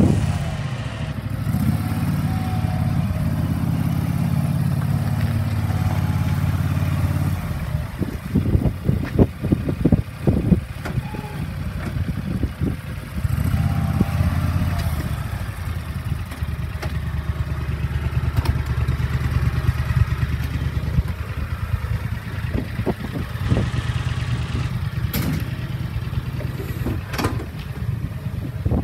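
The three-cylinder diesel engine of a Club Car XRT1550 utility vehicle running steadily. Uneven knocks and rustle break in between the steady stretches.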